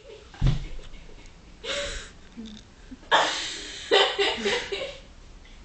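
Breathy, hushed laughter and sharp breaths in a few short bursts, with a dull thump about half a second in.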